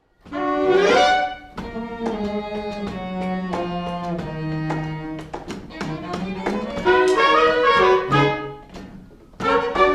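Pit orchestra playing: the music starts abruptly with a rising sweep in the first second, moves over a slowly falling low line, thins out briefly near the end, then comes back in full.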